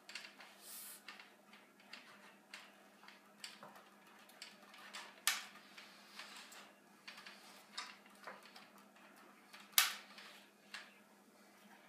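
Scattered clicks and knocks of a clamp being fitted and tightened on the glued wooden arm of a rocking chair, with two sharper knocks about five and ten seconds in, over a faint steady hum.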